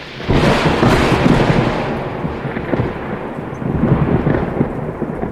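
A long rumble of thunder, swelling about a quarter second in and slowly dying away near the end.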